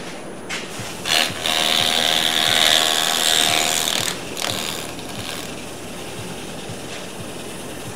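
Wood lathe running while a paper towel is pressed against the spinning Kentucky coffee tree bowl to wipe on finish. The towel rubs with a loud hiss and a faint squeal from about a second in until about four seconds, then goes on more quietly over the steady running of the lathe.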